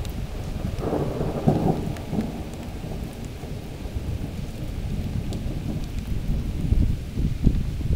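Thunder rumbling through steady rain, swelling about a second in and again near the end.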